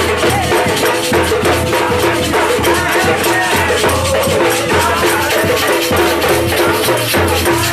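Group folk music: a two-headed dhol drum beaten in a steady rhythm, with hand-clapping and rattling percussion under a melody.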